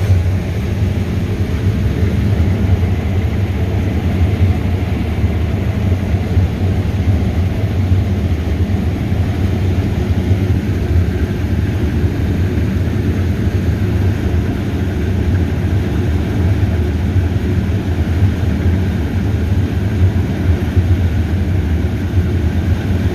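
Heavy farm machinery engines at a corn harvest, running steadily with a loud, low, unchanging drone.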